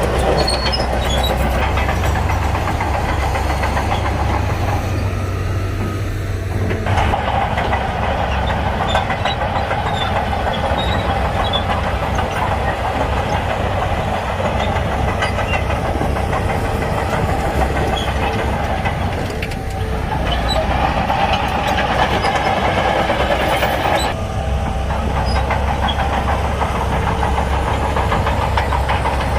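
Shantui crawler bulldozer's diesel engine running hard with the steel tracks clattering, the engine note shifting a few times as the load changes.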